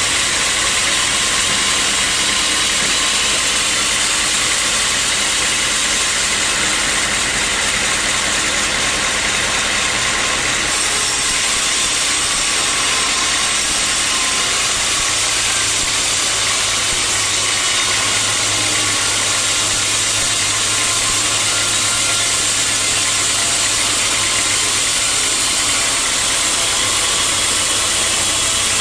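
Sawmill machinery running steadily: a constant engine-like drone with a strong hiss over it, unbroken throughout.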